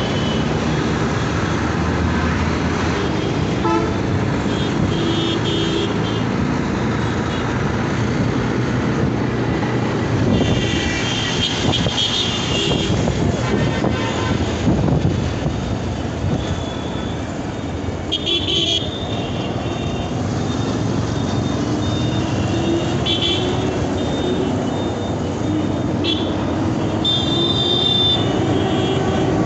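Dense city road traffic: steady engine and road noise with vehicle horns honking again and again, several in quick clusters, and an engine tone slowly rising in pitch late on.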